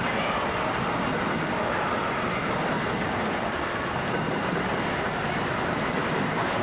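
Container wagons of a long mixed freight train rolling past on steel rails: a steady rumble of wheels on track.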